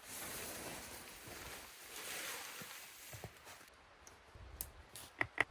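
Tent being pitched: a rustling of handled tent fabric for the first few seconds, then quieter, with a few sharp clicks and taps near the end.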